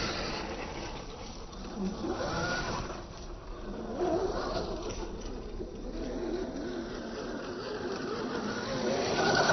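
Electric motor of a Losi Rock Rey RC truck whining, its pitch rising and falling as the throttle is worked, over the noise of tyres on rough ground.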